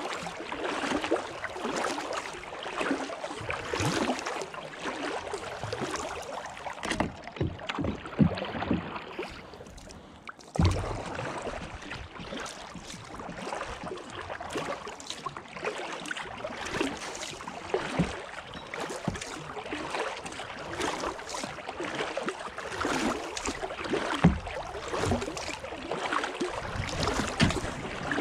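Kayak paddling on calm water: the paddle blades dip, pull and splash in a steady run of strokes, with water dripping between them. A single sharp thump comes about ten and a half seconds in.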